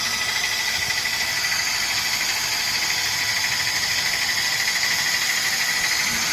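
Electric epoxy injection grouting pump running steadily, a continuous hiss with a high whine.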